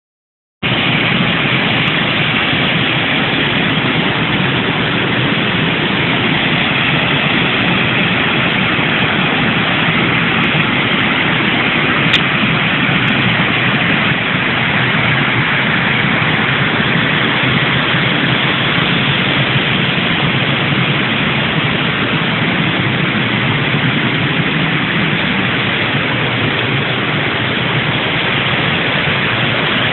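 Steady rushing of a wide waterfall carrying a flooded, muddy river at high flow, with a single click about twelve seconds in.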